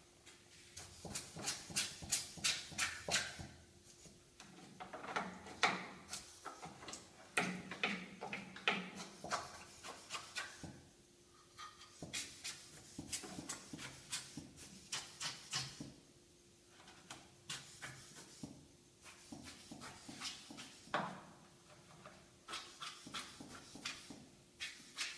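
Quick repeated scraping strokes from hand work on a washing machine's plastic top panel, about four to five a second, in bursts of a few seconds with short pauses. A faint steady hum runs underneath.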